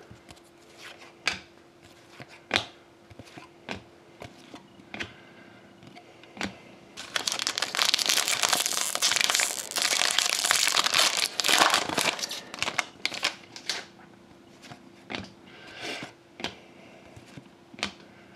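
Foil hockey card pack wrapper being torn open and crinkled for about five seconds, starting about seven seconds in, between scattered light taps and clicks of cards being handled.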